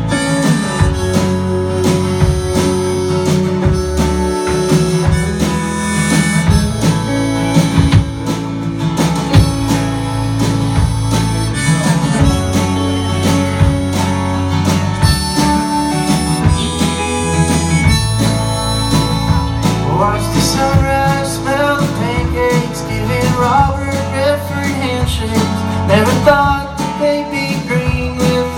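Live band playing an instrumental introduction to an Americana song: acoustic and electric guitars over bass and a steady drum beat. From about two-thirds of the way through, a lead line plays notes that bend up and down in pitch.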